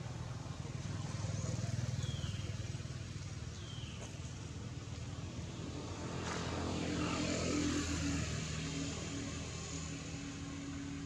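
A motor vehicle's engine passing, loudest about seven seconds in, its pitch falling as it goes by, over a steady low rumble of traffic. Two short high falling chirps come about two and four seconds in.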